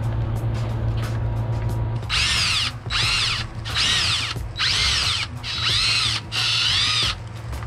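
Cordless drill boring holes in a mounting bracket: about two seconds in, five short pulses of the trigger, each a whine that rises and then falls in pitch as the motor spins up and winds down.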